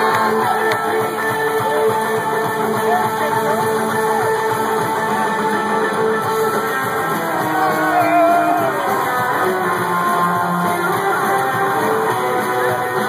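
Live rock band playing loud and steady, electric guitar over upright bass, recorded from within the crowd.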